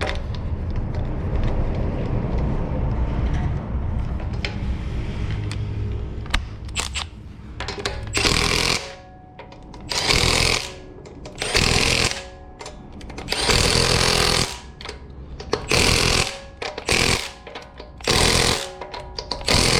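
Impact wrench running in and tightening wheel bolts in about eight short, loud bursts through the second half, one bolt after another. Before that there is a low steady rumble.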